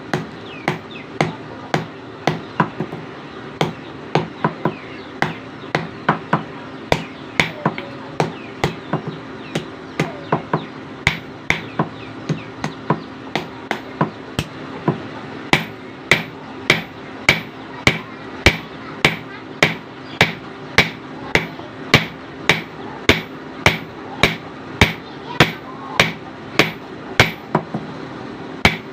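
Hammer blows forging a knife blade on an anvil, about two strikes a second, falling into a steadier, louder rhythm about halfway through, over a steady low hum.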